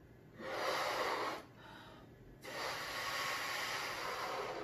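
A person breathing hard into a rubber balloon to inflate it: a breath of about a second, then a longer blow of about two seconds near the end.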